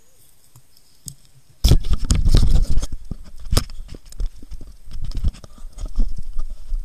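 Action camera picked up off the ground about a second and a half in: a sudden burst of loud handling knocks and rumble on its microphone, then irregular thuds and rustling as it is carried by a running person.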